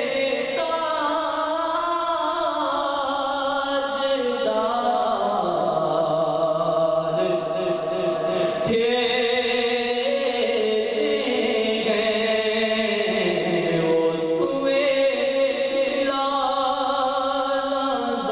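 A man singing a naat, an Urdu devotional poem, solo into a handheld microphone, in long held, wavering lines that slide between notes, with a short break about halfway through.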